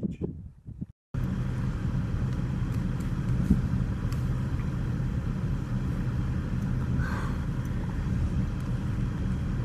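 A vehicle engine idling: a steady low rumble that starts abruptly about a second in.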